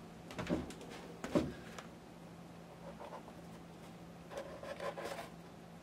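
Cardboard model-kit box being handled and its lid opened: a couple of soft knocks in the first second and a half, then cardboard rubbing and sliding about four to five seconds in.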